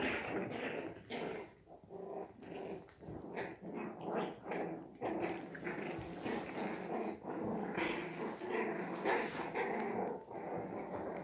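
Five-week-old Havanese puppies play-growling as they wrestle, a continuous string of small, choppy growls.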